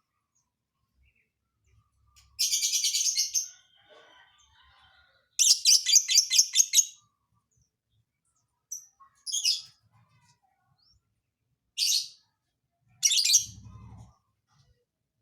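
Lovebird singing in separate bursts of rapid trilled high notes, the longest about a second and a half, with a brief low thump near the end.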